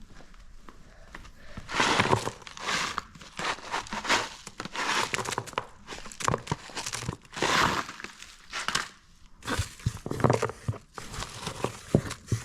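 Crinkling and rustling in irregular bursts, with small clicks and knocks, as material is handled and packed into a homemade firework.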